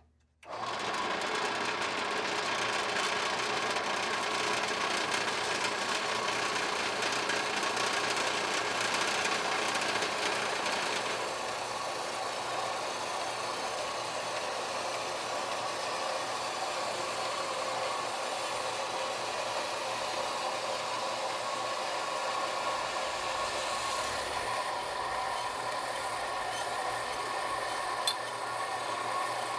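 Electric power saw cutting a firebrick, starting up right at the beginning and running steadily with a motor whine; the high hiss of the cut eases about eleven seconds in.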